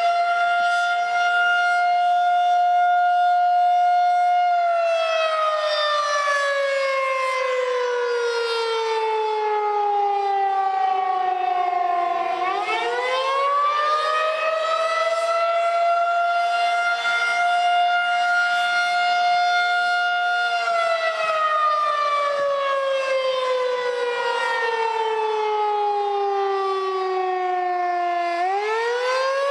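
Outdoor tornado warning siren sounding a wail for a test tornado warning. The tone holds steady, slowly falls in pitch over several seconds, then sweeps quickly back up and holds again, twice.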